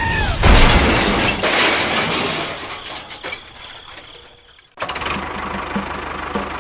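A sudden crash of noise that dies away over about four seconds. Then it cuts abruptly to a steady mechanical hum with a light, regular ticking.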